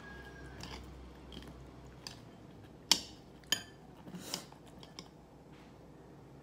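Close-up eating of crumb-coated fried chicken: a handful of sharp crunches and clicks at irregular intervals, the loudest about three seconds in.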